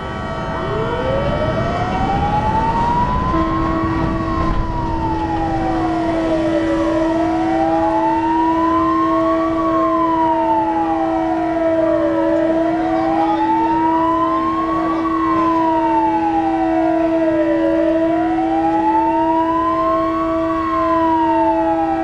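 A wailing siren rising and falling in pitch about every five and a half seconds, sounded for a ship launch, with a steady tone held under it from about three seconds in. In the first few seconds there is a low rush of water as the trawler's hull slides sideways into the river.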